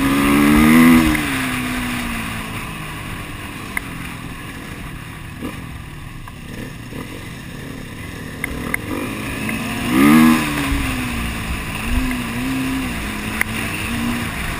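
Enduro dirt bike engine heard from on board, revving up and dropping back about a second in and again about ten seconds in, with short throttle blips a little later, over steady trail and wind noise.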